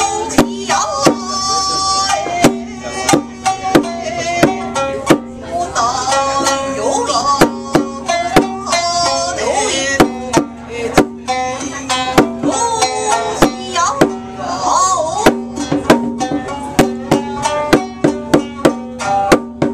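Traditional Japanese music: a shamisen plucked while a woman sings, with sharp strikes on a small rope-laced taiko drum played with two sticks. The drum strokes come irregularly, then in quick runs near the end.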